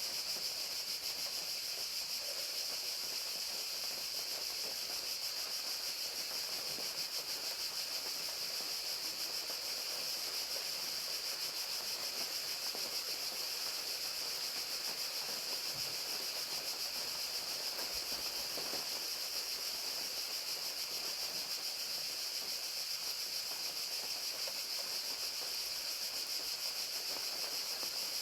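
A chorus of crickets chirping steadily and high-pitched, with a fainter hiss of rain beneath.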